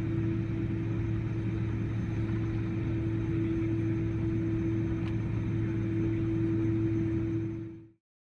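Cabin noise inside a Boeing 777-300 taxiing after landing: the twin turbofan engines run at low thrust as a steady hum with a held low tone and a higher one. It fades out quickly near the end.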